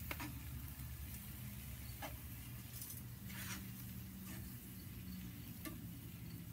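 Tongs clicking and scraping now and then in a pan of mushrooms simmering in red wine on a grill, over a low steady hum.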